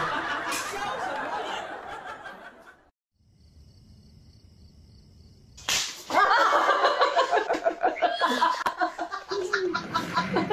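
Voices fade out about three seconds in, followed by a short near-quiet pause. About halfway through a sharp slap on a face is followed by laughter and excited voices.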